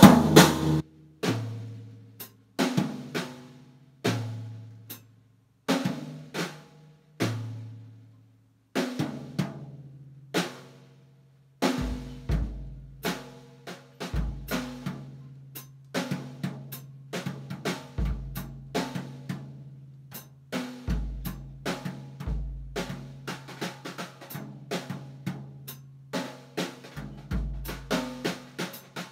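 Basix acoustic drum kit being played. It starts with slow single drum hits about every one and a half seconds, each ringing out. From about nine seconds it becomes a busier beat with bass-drum kicks, snare and cymbals, over a steady low hum.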